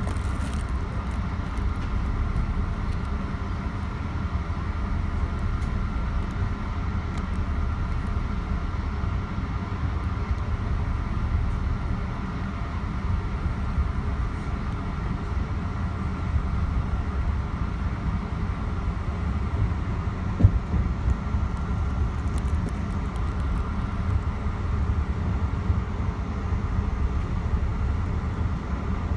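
Metro-North commuter train running along the track, heard from inside the front car: a steady low rumble with a faint steady whine over it, and a single sharp knock about twenty seconds in.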